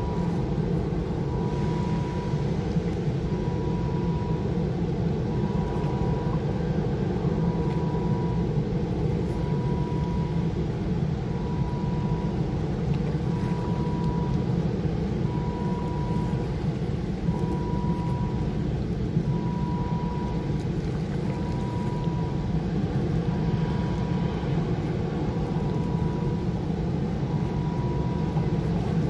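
Steady low mechanical drone, unchanging, with a faint high tone pulsing on and off about every second and a half.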